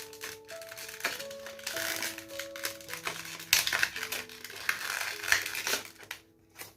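Background music with steady notes, over rustling, crinkling packaging and a few sharp clicks as a boxed processor is handled; the rustling dies away near the end.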